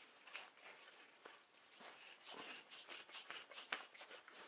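Faint scraping and light metallic ticks of steel steering tubes being handled and pushed together by hand, with one sharper tick near the end.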